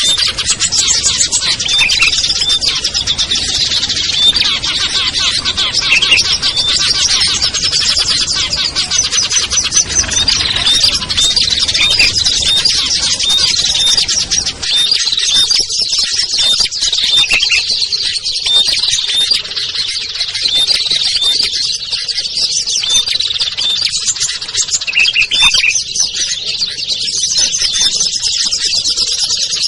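A dense chorus of many small songbirds chirping and trilling over one another without pause, a mixed bird-lure recording for calling down small wild birds. A low background rumble under the birds drops away about halfway through.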